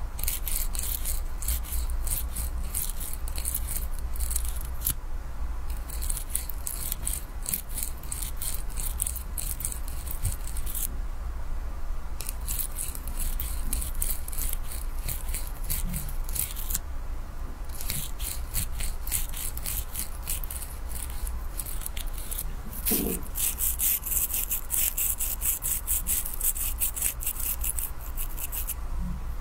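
Close-miked rapid scratching and crackling of a comb-like tool rubbed over hair and scalp beside the ear, in runs of quick strokes broken by three short pauses, over a steady low hum.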